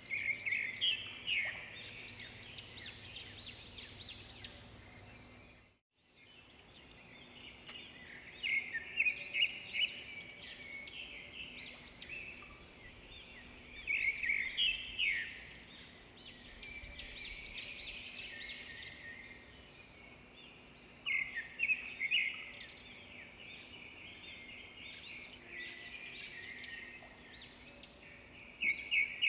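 Birdsong: a bird sings a loud, rapid phrase of high notes about every six seconds, with softer twittering in between. The sound cuts out briefly about six seconds in.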